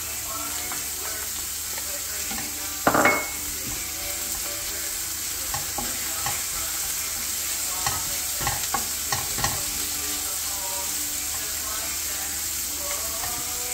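Chopped onion and crushed garlic sizzling in hot oil in a frying pan while being stirred with a wooden spatula. One loud knock about three seconds in, and several lighter knocks and scrapes of the spatula on the pan later on.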